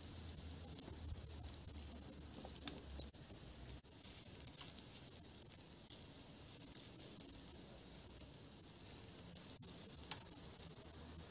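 Minced-meat kebabs sizzling on a charcoal grill, a steady fine hiss with a few sharp clicks and pops.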